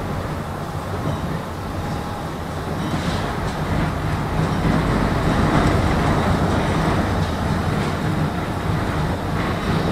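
Tram running along the track, heard from aboard: a steady rumble of wheels on rails and traction motors with a low hum, getting a little louder around the middle.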